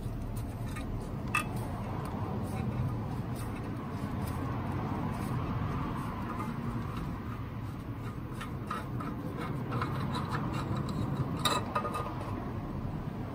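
Oil filter housing cap of a Saab 9-5's 2.8 V6 turbo being unscrewed by hand: light scrapes and clicks from the cap and its threads, with a sharper click near the end, over a steady low hum.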